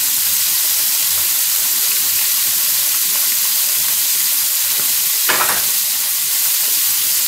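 Catfish fillets frying in melted butter and blackening seasoning in a very hot cast iron skillet: a steady sizzle as the butter blackens the fish. A brief noise sounds a little over five seconds in.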